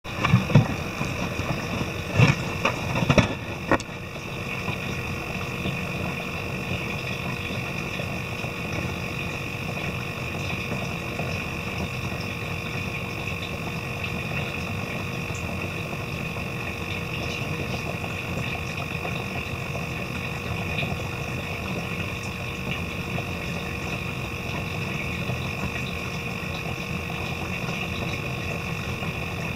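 Small electric pump running with a steady hum, feeding water through a tube over the gills of a fish held for surgery. A few knocks and bumps in the first four seconds.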